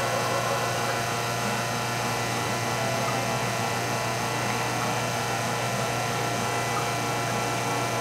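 Nuova Simonelli Aurelia three-group espresso machine pulling a shot: its rotary pump runs with a steady, even hum while the espresso flows.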